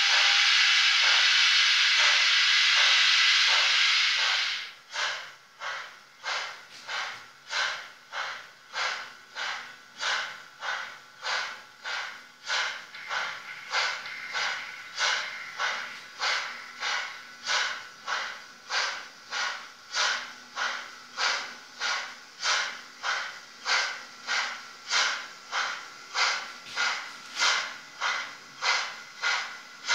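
Model steam locomotive 099 651-2 hissing steadily for about four seconds, then chuffing evenly at about one and a half beats a second as it runs.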